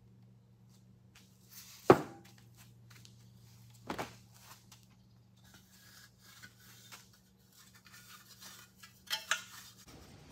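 Metal parts of a dry-sump oil tank knocking and clanking as they are handled and set down on a workbench: a sharp clank about two seconds in, another near four seconds, light taps and clicks between, and a quick double clank near the end.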